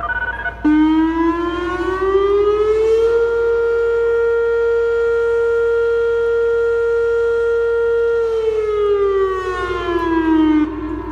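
Whelen WPS 2902 electronic warning siren sounding one loud test wail. The tone comes on suddenly about half a second in, rises for a couple of seconds, holds a steady pitch for about five seconds, then falls and cuts off near the end.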